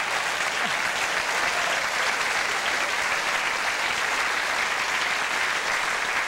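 Studio audience applauding steadily for a joke.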